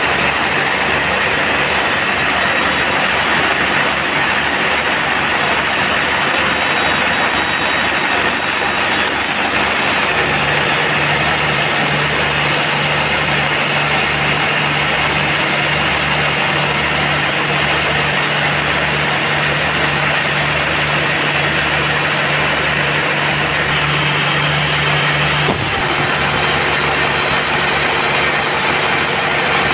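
Sawmill bandsaw machinery running with a loud, steady mechanical noise. A low steady hum joins in about ten seconds in and drops out about fifteen seconds later.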